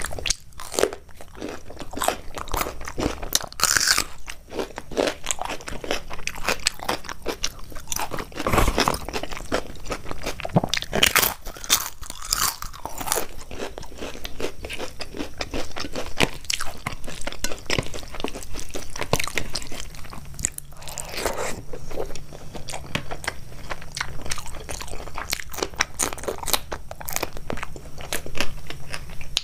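A person chewing and crunching food close to the microphone: many crisp crunches, with a few louder bites.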